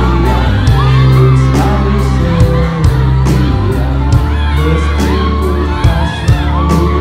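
Live pop band playing loudly over a PA, with a heavy bass, regular hi-hat ticks on the beat and singing, with crowd shouts mixed in.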